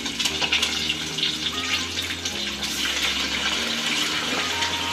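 Chicken pieces deep-frying in hot oil in a pot: a steady sizzle with small crackles and pops.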